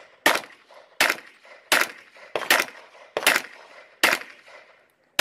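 Handgun fired in a steady string of six shots, about three-quarters of a second apart, with a seventh shot right at the end, each shot cracking sharply and trailing a short echo.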